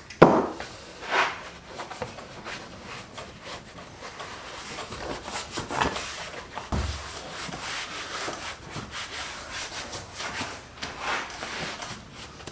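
Hands rubbing and pressing a sheet of high-density foam onto a glued fiberglass speaker pod: irregular scraping and rubbing strokes.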